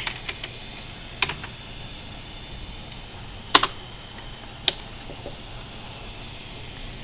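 A handful of single, separate computer clicks over a steady low hiss, the loudest about three and a half seconds in.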